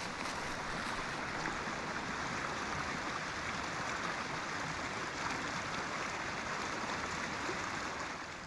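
Stream water rushing steadily, cutting off just before the end.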